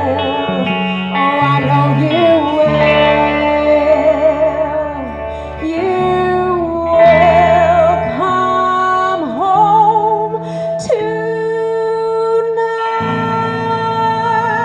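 Live rock band: a woman sings long held notes with a wide vibrato over guitar and bass.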